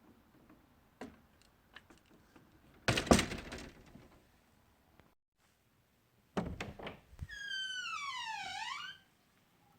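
Two door sound effects. First a few light clicks and then a door shut with a loud, heavy clunk about three seconds in. Then, after a short break, a latch clicking and a door hinge creaking open for about a second and a half, the creak dropping in pitch and then rising again.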